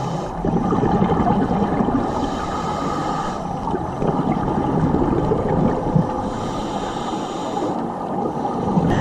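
Underwater sound on a dive: a steady rumbling wash, with two spells of higher hissing bubbling, the first near the start and the second about two-thirds of the way in.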